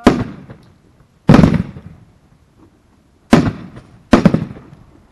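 Aerial fireworks shells bursting overhead: four sharp booms about one to two seconds apart, each trailing off in a fading echo and crackle.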